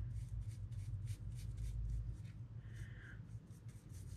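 Bristle paintbrush dabbing and scrubbing thick, textured black acrylic paint onto an XPS foam column: a quick run of short, scratchy strokes, about three or four a second.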